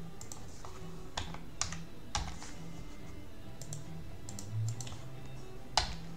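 Computer keyboard keystrokes and mouse clicks: several sharp, separate clicks at uneven intervals, the loudest one near the end.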